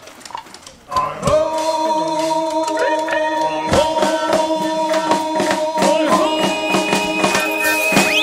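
Music: after a quieter first second, long held chords come in, with singing.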